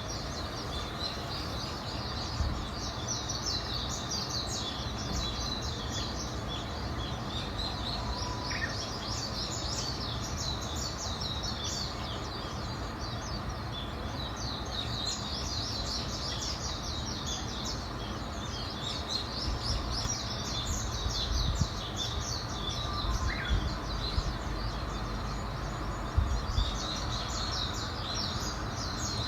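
A chorus of many small birds singing and chirping at once: rapid, overlapping high chirps that never stop, over a steady low rumble of background noise.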